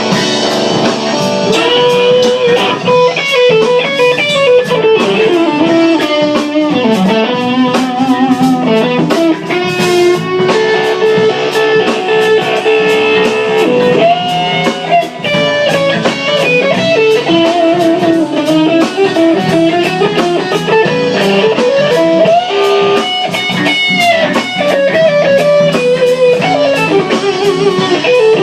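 Live band playing an instrumental break in a blues vein: an electric guitar lead line with bent, wavering notes over drums and backing instruments.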